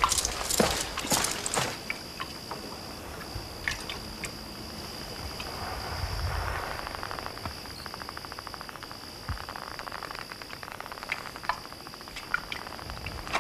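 Water sloshing and gurgling in a canteen as a man drinks from it, with fine rapid gulping in the middle stretch. There are a few sharp knocks and scuffs in the first two seconds, and a thin, steady high tone with short breaks runs underneath.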